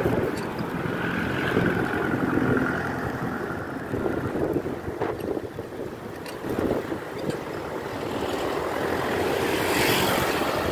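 Wind buffeting the microphone and street traffic going by, heard while riding along a city road.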